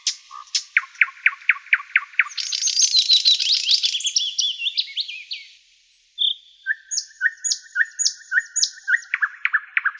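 Songbirds singing. First comes a quick run of falling whistled notes, then a dense, fast trill for about three seconds. After a brief pause just past the middle, a steady series of repeated two-part notes follows, ending in a few falling notes.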